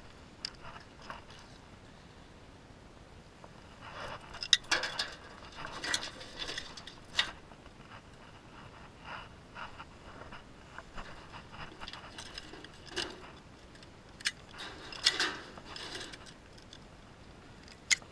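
Metal crab tongs and a wire-mesh crab trap clinking and rattling as crabs are picked out of the trap. The sound comes in scattered bursts of clicks and scrapes, busiest about four to seven seconds in and again around fifteen seconds.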